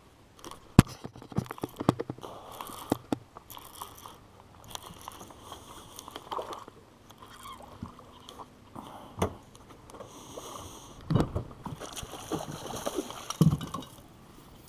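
Irregular clicks, knocks and rustling from handling a baitcasting rod and reel and moving about in a small fishing boat, with a sharp knock about a second in.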